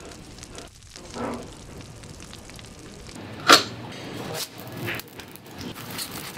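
Large open flames burning with a steady rushing noise. There is one sudden loud burst about halfway through and a few smaller pops later on.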